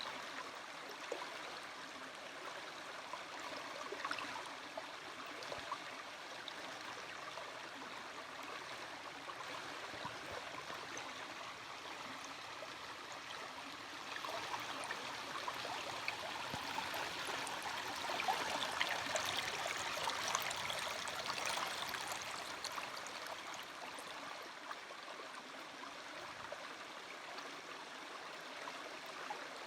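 Small stream babbling and trickling steadily, swelling a little louder for several seconds past the middle.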